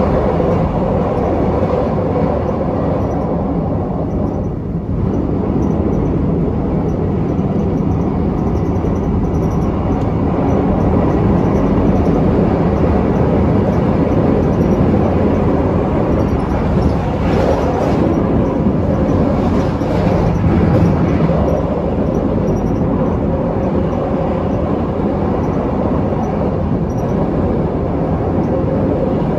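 Steady running noise of a KTM Class 83 Hyundai Precision electric multiple unit heard from inside the carriage: a continuous rumble of wheels on rail, with a few faint clacks about two-thirds of the way through.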